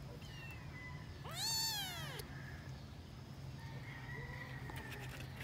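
Munchkin kitten meowing: one loud, high call whose pitch rises and falls, about a second and a half in, then a fainter, lower mew about four seconds in.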